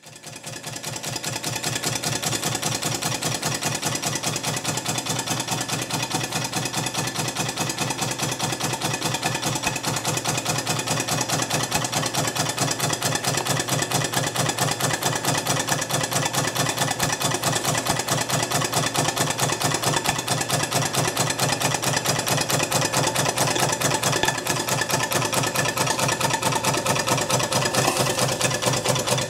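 Markie model steam plough engine running steadily with a fast, even ticking beat, fading in from silence over the first second or two. It is running on low steam pressure, about 20 PSI, with the throttle barely open.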